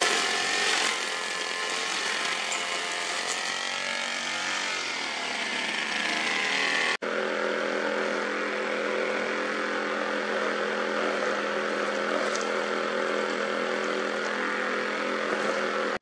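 A running engine: its pitch slides up and down for the first several seconds, then after a brief cut it settles into a steady multi-tone hum, over a rushing-water hiss.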